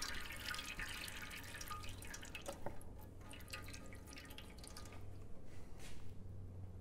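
Automatic transmission fluid dripping from the exposed valve body into the drain pan below, irregular drips coming quickly at first and thinning out toward the end.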